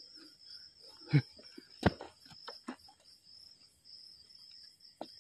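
Crickets trilling steadily in a high, even pulse, broken by a few short sharp thumps, the loudest about one and two seconds in.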